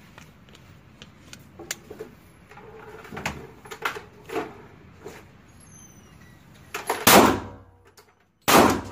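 Two pistol shots from a Glock 27 (.40 S&W), about a second and a half apart, each with a long echoing tail off the concrete of an indoor range. Before them come scattered small knocks and clicks.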